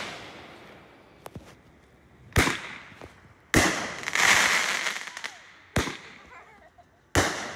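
Consumer aerial fireworks going off: four sharp bangs at uneven gaps of one to two seconds. The second bang is followed by a loud hissing crackle lasting about a second and a half, as its stars burst and fall.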